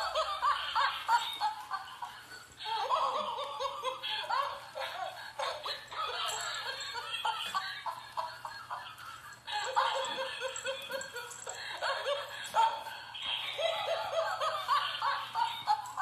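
Laughter in repeated bouts of a few seconds each, with short breaks where it stops abruptly.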